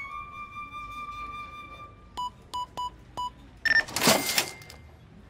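Cartoon cash-register sound effects: a held whistle-like note, then four quick beeps as keys are punched into an electronic till, and near the end a short, louder rattling ring as the till rings up the sale.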